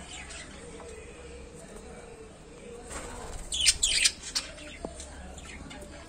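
Flock of budgerigars chirping, with a burst of loud, sharp chirps about three and a half seconds in.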